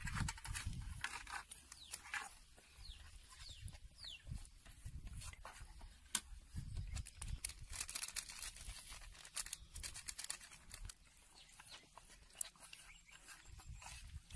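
Plastic spice packets crinkling and rustling while chilli and masala powder is shaken out onto a steel plate: a run of irregular light clicks and rustles.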